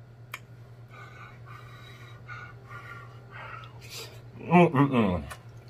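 A man chewing a mouthful of chicken and rice, with soft faint mouth sounds, a breathy exhale about four seconds in, then a loud drawn-out vocal sound near the end, over a steady low hum.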